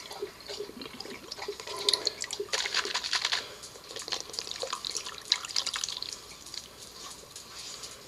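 Gold pan of concentrates being worked in water: water sloshing, splashing and dripping in irregular spurts.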